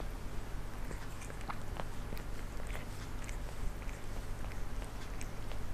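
A cat grooming itself: irregular soft, wet licking and smacking clicks of its tongue on its fur, over a steady low hum.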